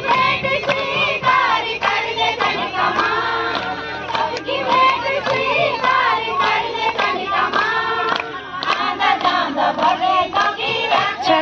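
A group of women singing a devotional bhajan together, keeping time with rhythmic hand claps.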